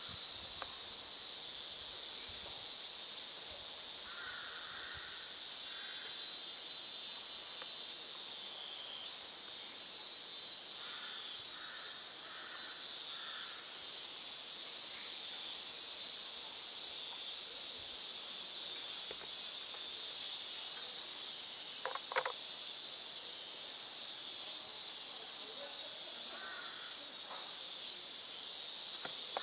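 Steady, high-pitched buzzing drone of an insect chorus. Now and then come faint, short bird chirps in small groups, and about two-thirds of the way through there is one sharp click.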